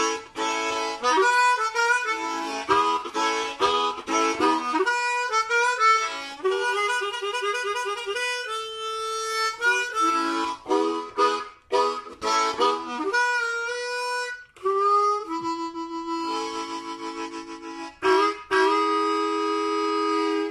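Diatonic blues harmonica played solo: quick phrases of single notes and chords with notes bent in pitch, ending on a long held chord.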